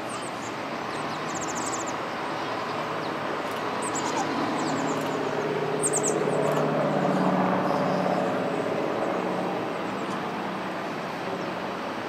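Junkers Ju 52 trimotor's three radial engines droning at take-off power as it lifts off and climbs away, swelling to their loudest about seven seconds in and then fading.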